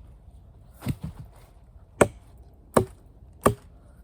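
Blade chopping into the base of a wooden pole to trim a few inches off its end: four sharp chops, roughly a second apart, the first followed by a lighter knock.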